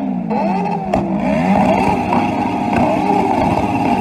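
Yamaha motorcycle engine revved hard again and again, its pitch rising and falling about one and a half times a second, in the bikers' rev-limiter 'rupture' display.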